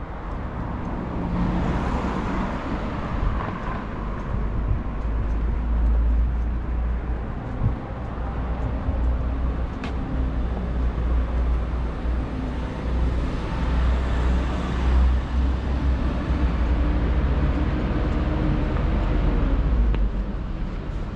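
Street traffic: cars passing on a city street over a steady low rumble, with one vehicle going by about two seconds in and another around the two-thirds mark. A single sharp click near the middle.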